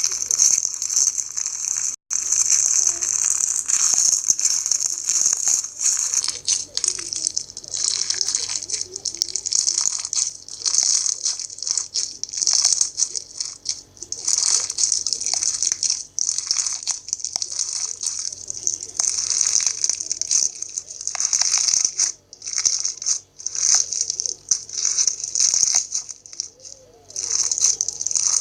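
Fishbowl slime, a clear slime packed with small plastic beads, being squeezed and pressed by hand. It gives a dense, continuous crackle of many small clicks, rising and falling with each squeeze.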